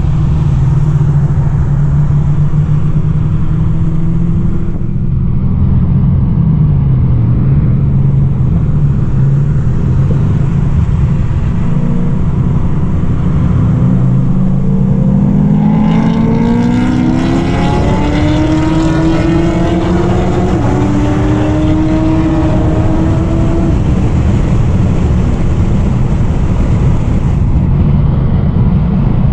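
High-performance car engine on a track run: a steady drone at first, then revving up hard about halfway through, its pitch climbing, dropping back once at a gear change and climbing again before it eases back to a steady drone.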